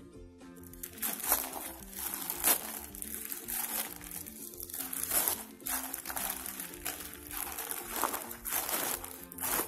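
Plastic courier mailer bag crinkling and rustling in repeated bursts as hands pull it open and tear into it, over quiet background music.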